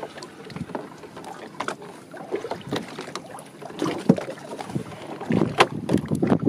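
Small open wooden fishing boat at sea: water slapping against the hull, with irregular sharp knocks and scrapes as a fish-pot line is hauled aboard by hand over the gunwale.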